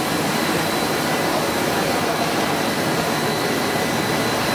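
Cast film extrusion line running: a steady machinery noise with a faint high whine held at one pitch.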